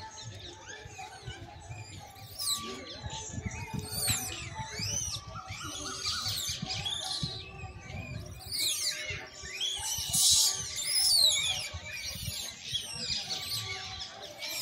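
Many small birds chirping and calling at once, with quick rising and falling calls overlapping throughout and loudest about ten seconds in, over a low wind rumble on the microphone.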